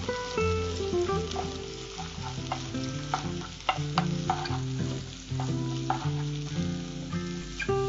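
Chopped onions sizzling as they fry in hot oil in a nonstick frying pan while being stirred with a wooden spatula. The spatula clicks and scrapes against the pan repeatedly.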